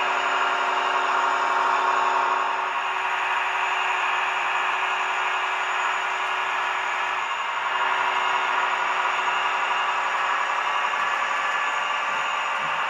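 Sound decoder in a Roco H0-scale class 628 diesel railcar model playing a steady diesel-engine running sound through the model's small speaker as the railcar runs along the track.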